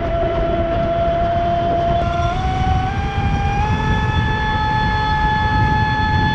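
Traxxas Spartan RC speedboat's brushless electric motor whining at speed as it skims the water. The whine steps up in pitch between about two and four seconds in as the boat speeds up, over a steady rush of water and wind.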